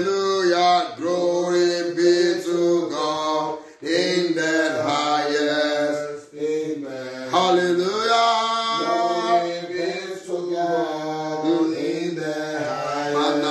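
A man singing a slow worship chant solo, with long held notes and short breaks between phrases.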